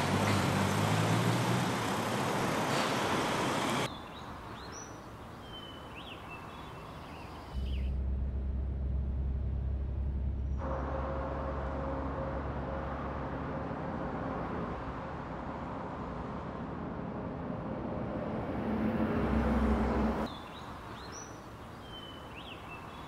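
Street traffic noise for the first few seconds. A quiet spell with birds chirping follows, then the engine of a Volvo FH heavy truck running as it drives along a road: a steady low drone with a faint hum above it that swells near the end. It cuts back to quiet birdsong for the last few seconds.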